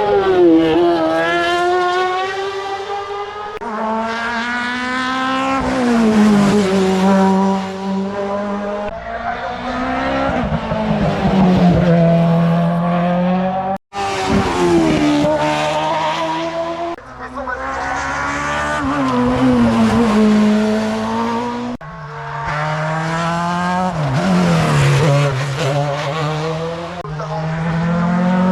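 Race cars at a hill climb, their engines running hard, the pitch climbing and dropping sharply again and again through gear changes. There is a brief cut to silence about 14 seconds in.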